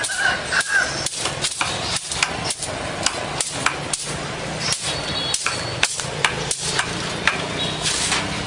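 A cleaver chopping on a wooden block with steady, even strokes, about two to three a second.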